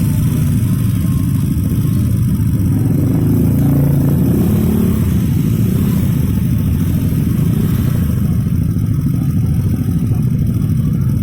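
Steady low rumble of vehicle engines, swelling slightly a few seconds in.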